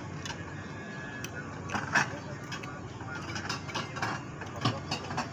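Metal fork clinking and scraping against a ceramic bowl of instant noodles while someone chews, in scattered sharp clicks with the loudest about two seconds in. Underneath runs a steady low background hum.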